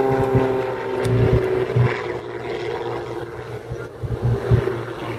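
Aerobatic biplane's piston engine and propeller droning overhead. The steady pitched drone sinks slightly and fades in the first second or so, leaving a rougher, fainter engine noise with irregular low bumps from wind on the microphone.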